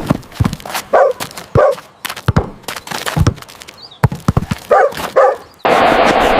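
A dog barking, two quick barks about a second in and two more near five seconds, over a run of short sharp taps. Near the end a loud, steady noise sets in suddenly.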